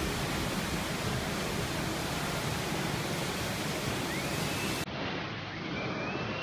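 Steady rushing of water pumped over an indoor standing-wave surf machine as a surfer rides it. A faint high tone glides upward twice in the second half.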